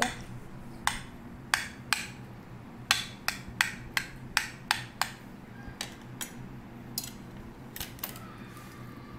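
A knife point jabbing into a raw king fish steak, clicking sharply against the ceramic plate beneath with each stab. The stabs come about two to three a second, thinning out after about five seconds.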